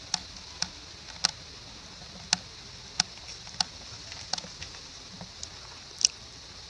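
About a dozen sharp clicks or taps at irregular intervals, roughly one every half second, over a steady high-pitched hiss. The loudest click comes near the end.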